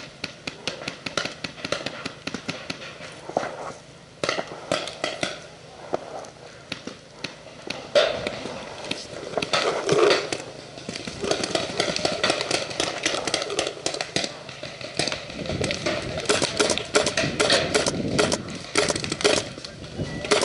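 Irregular clicks and rustling throughout, thicker in the second half, with indistinct voices.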